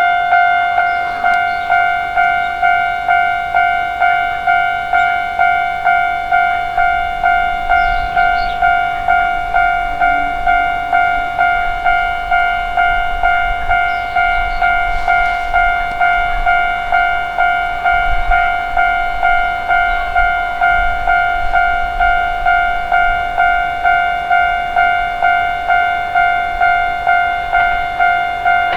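Japanese level crossing warning bell sounding its steady, repeated 'kan-kan' ding, each strike fading before the next. A train rumbles through the crossing beneath it for several seconds in the middle.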